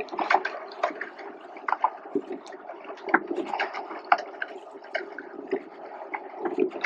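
Water splashing and lapping, with many irregular small splashes and drips over a steady wash.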